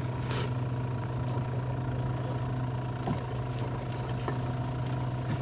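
A boat engine idling steadily, a constant low hum with a faint steady whine above it.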